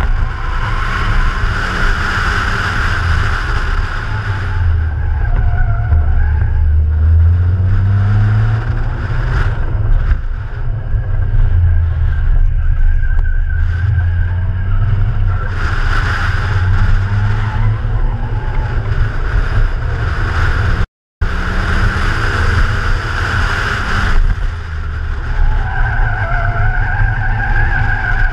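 BMW E36 Compact's 2.8-litre straight-six engine driven hard on a race track, rising in pitch again and again as it accelerates and dropping back for corners, with tyres squealing through the bends. A steady rumble of wind runs under it from the outside-mounted microphone, and the sound cuts out for an instant about two-thirds of the way through.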